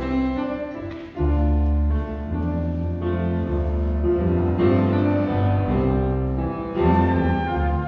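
Instrumental interlude on piano and bass between the choir's sung passages: piano chords over steady, strong low bass notes, the bass coming in loudly about a second in.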